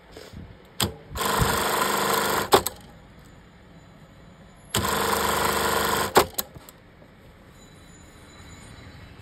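Industrial lockstitch sewing machine running in two short bursts of about a second and a half each, with sharp clicks just before and after each run.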